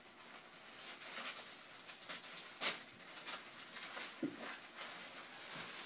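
Rustling and crinkling of packaging being handled, in irregular bursts, with one louder crackle a little under three seconds in.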